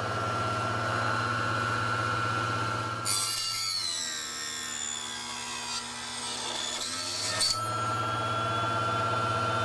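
Small table saw running with a steady hum and whine, then cutting through a wooden frame moulding for about four seconds from about three seconds in: a harsh rasping joins the motor, whose pitch sags as the blade loads up under the cut. The motor then comes back up to speed and runs free again; the cut sounded awful.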